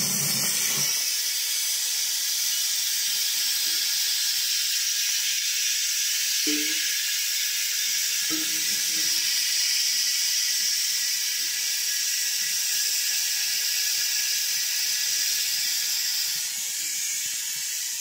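Steady hiss of pressurized gas rushing out of a refrigerator's tubing into a plastic catch bottle while the lines are flushed with lacquer thinner. It eases slightly near the end.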